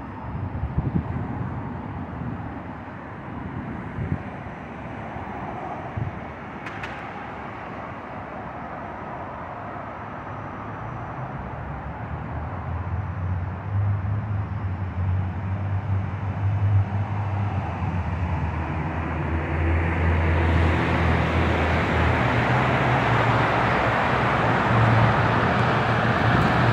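Road traffic passing under a concrete highway overpass: a steady wash of tyre and engine noise. A vehicle's low engine hum builds from about halfway through, and the traffic grows louder over the last few seconds.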